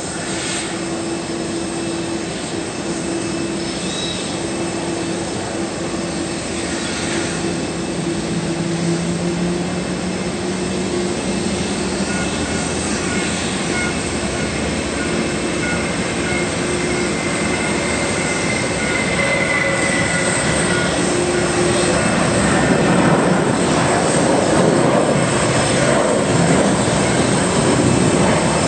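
Airbus A320-200's twin turbofan engines at takeoff power: a continuous jet roar with faint steady whining tones in it, growing gradually louder as the airliner rolls down the runway, lifts off and climbs away.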